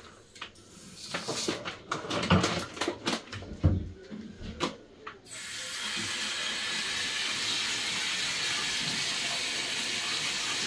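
Light clinks and knocks of a bowl and drinking glass as rice is measured out. About halfway through, a kitchen tap starts running steadily into the sink.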